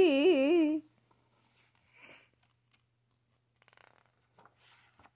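A voice drawing out a sing-song, wavering note that stops about a second in, then faint rustles of a picture book's page being turned.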